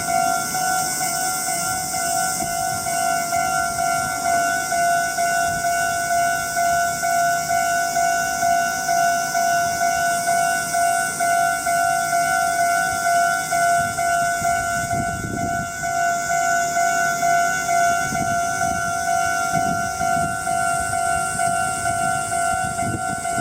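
Japanese level-crossing warning bell ringing its fast, even "kan-kan" alarm, a steady two-tone clang repeated without a break. Low rumbles come in under it in the second half.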